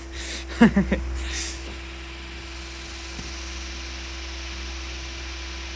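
Brushed DC scooter motor spinning a large oscillating-fan blade at speed: a steady low hum with a constant tone and an even rush of air.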